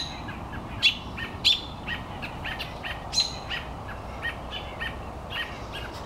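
Several songbirds giving rapid, repeated short alarm calls, mobbing a cat that has caught one of their kind. A few louder, sharper calls stand out, about one, one and a half, and three seconds in.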